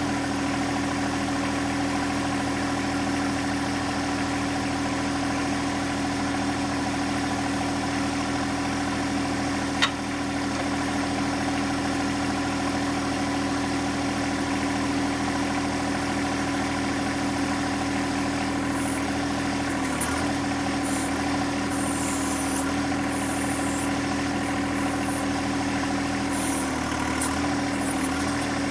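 John Deere 1025R compact tractor's three-cylinder diesel engine running at a steady speed, with a single sharp click about ten seconds in.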